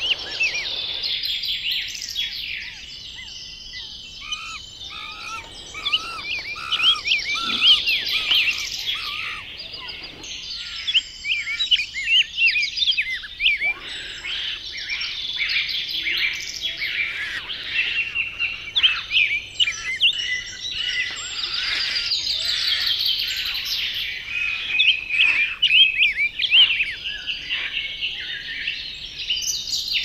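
Many birds chirping and singing together, a dense chorus of short, high, quick chirps.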